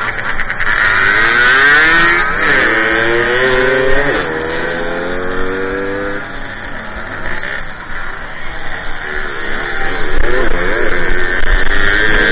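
Small two-stroke moped engine under hard throttle, heard from on the bike. Its pitch climbs, drops back and climbs again several times, then rises and falls as the rider works the throttle.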